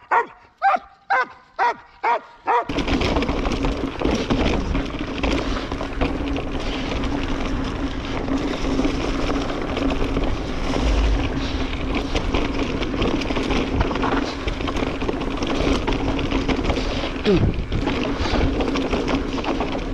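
A dog barks about six times in quick succession, roughly two or three barks a second. After about two and a half seconds the barking cuts off and is replaced by the steady rolling noise of a mountain bike riding a leaf-covered dirt trail, with a constant low hum.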